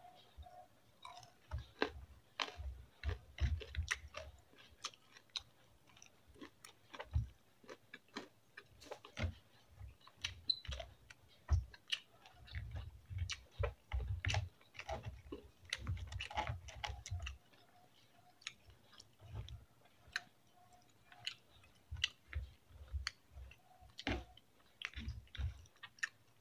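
Close-miked chewing and mouth clicks of someone eating a meal of rice, pancit canton noodles and fried chicken by hand: irregular sharp clicks and soft low thumps, coming in clusters with short pauses between.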